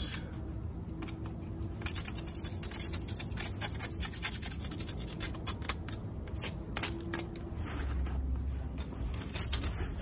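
Beehive frame being scraped with a hand tool: a run of short, irregular scratching strokes, scraping out dead bees crusted into the frame.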